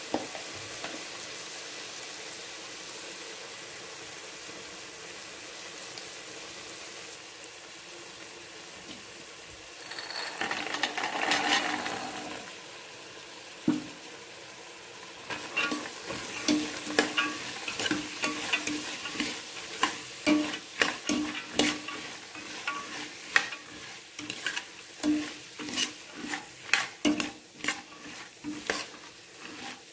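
Masala sizzling in a steel pressure cooker, with a louder swell of sizzling about ten seconds in as the boiled chickpeas go in. From about halfway on, a steel ladle scrapes and clinks against the pot several times a second as the chickpeas are stirred through the masala.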